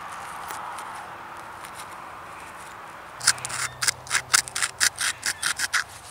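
Edge of a flint blade being ground down to build platforms for pressure-flaking: a steady rubbing scrape, then from about halfway a rapid run of short, sharp scraping strokes.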